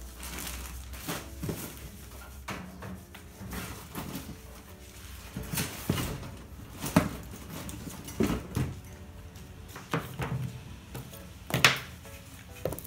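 Hand ink rollers and tools clattering and knocking in a plastic storage crate as they are rummaged through and picked out: irregular knocks and rattles, with two sharper knocks about seven seconds in and near the end.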